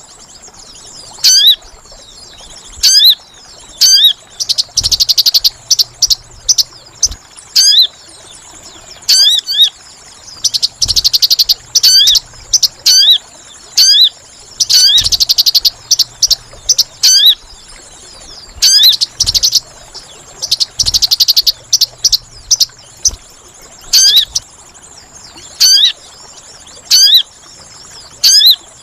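Crimson sunbird (sogon) calls from a bird-trapping lure recording. Sharp, high chip notes that swoop up and down come in short series, broken every few seconds by fast buzzy trills. Under them runs a steady, faint high whine.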